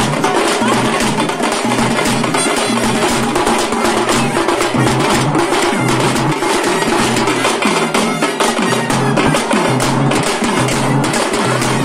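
Loud, fast drumming in festival music, with dense, rapid strokes and no pause.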